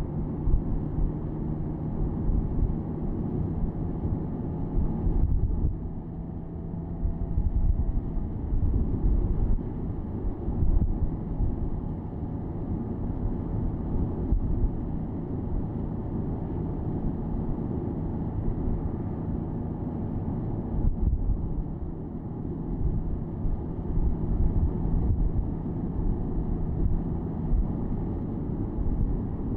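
Porsche Boxster S (987.2) 3.4-litre flat-six engine cruising at fairly steady revs, with low road and wind rumble through the open top.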